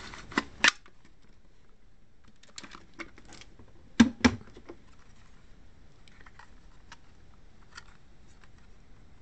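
Hard plastic clicks and knocks from handling a small robot vacuum and its plastic dust compartment: two sharp clicks near the start as the compartment comes free, two louder knocks about four seconds in, and scattered light taps.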